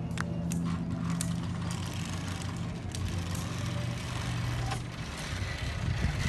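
A motor engine drones steadily at a low pitch and fades out about five seconds in, with a few faint clicks over it.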